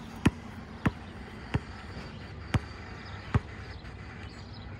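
Basketball dribbled on an outdoor asphalt court: five sharp bounces, unevenly spaced, the last about a second before the end.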